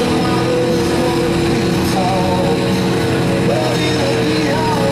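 Stock gasoline Chevrolet Avalanche pickup's engine running hard and steady under heavy load as the truck drags a weight-transfer pulling sled.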